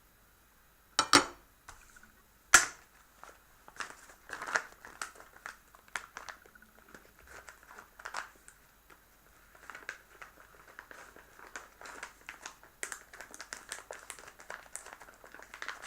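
Handling noise: two sharp clicks about one and two and a half seconds in, then a run of small, irregular clicks and crinkling as things are handled on a table.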